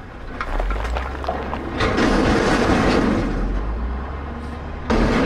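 Dump truck sound effect: a heavy truck engine running with a deep, steady rumble. It gets louder about two seconds in and jumps suddenly louder near the end.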